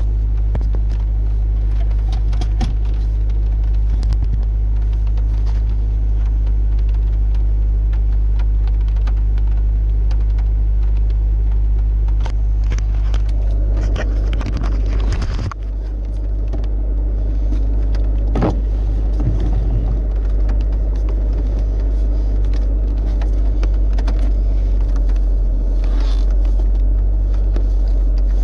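Audi ACE engine idling steadily after a cold start, a constant low hum heard from inside the car, with a few clicks and knocks about halfway through.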